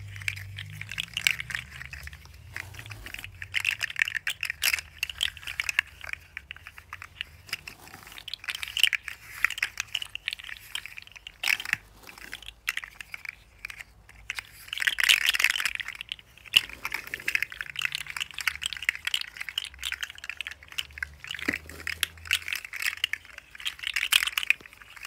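Articulated plastic fidget slug toys clacking and rattling as their jointed segments are flexed and wiggled by hand. The clicking comes in rapid bursts with short pauses, loudest about halfway through.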